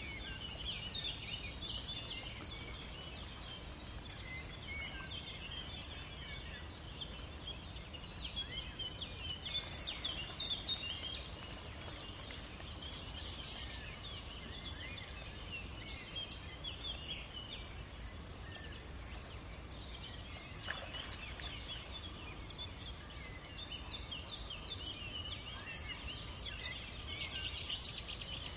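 Small birds chirping and singing in a busy, continuous chorus of short high calls, livelier about a third of the way in and again near the end, over a steady low outdoor rumble.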